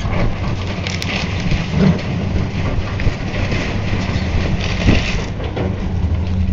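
Heavy demolition machine's diesel engine running steadily while it crunches and breaks apart building debris, with bursts of crackling and a few sharp knocks.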